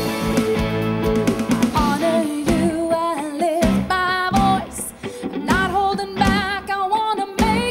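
Live band music: a woman sings a slow melody with vibrato over electric guitar, bass and drums. The voice comes in about two seconds in after a guitar passage, with a short gap in the singing near the middle.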